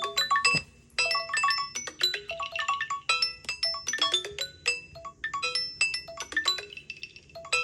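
A Samsung Galaxy phone's ringtone or alarm melody: a quick tune of short, bright, marimba-like struck notes. A brief pause comes just before a second in, then the tune starts again.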